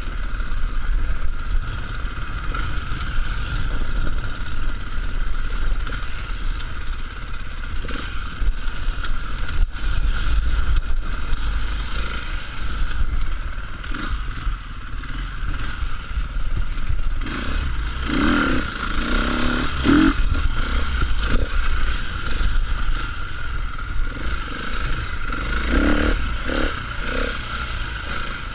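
Enduro motorcycle engine running while the bike rides over a rough, rocky trail, with clatter and scraping of the bike over rocks and brush.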